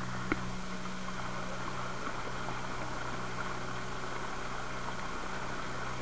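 A small boat's motor running at a steady speed, with water rushing and splashing along the metal hull; one short knock just after the start.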